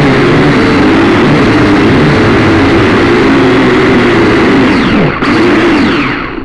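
Syma X5C-1 quadcopter's four small motors and propellers buzzing loudly, picked up close by the drone's own camera microphone. The pitch wavers up and down with the flying, and twice near the end it falls and the sound dips as the motors slow.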